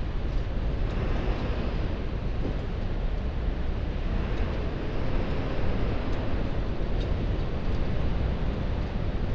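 Wind buffeting the microphone of a camera on a moving bicycle, mixed with the steady noise of motor traffic in the lanes alongside. The sound is a continuous, even rumble, with no single event standing out.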